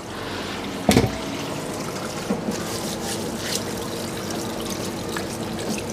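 Tap water running into a sink over pig trotters while they are scrubbed with a steel wool ball, with one sharp knock about a second in.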